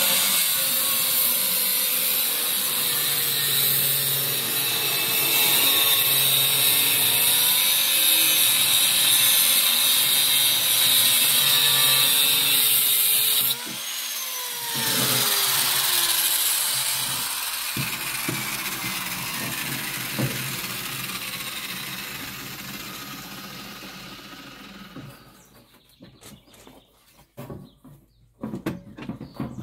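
Angle grinder with a cutoff wheel cutting perforated sheet steel, a steady loud whine with the grating of the cut. About halfway through it is switched off and the wheel spins down, its pitch falling as it fades. Near the end come a few scattered knocks of the metal being handled.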